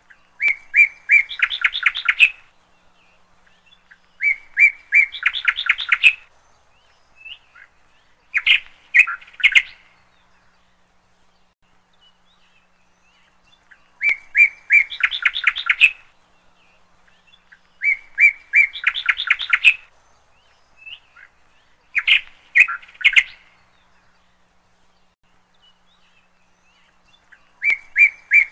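A bird singing: the same short song, a few clear notes running into a quick trill, repeated about seven times with pauses of a few seconds between.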